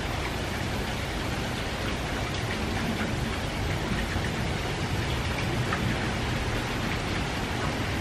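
Steady light rain from a distant typhoon, an even hiss with faint scattered drop ticks.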